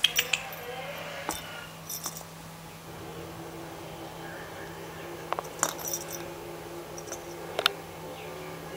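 Small metallic jingles and clinks from a cat's collar tag, with a few soft taps, coming in short scattered bursts as the cat rolls and squirms on the floor.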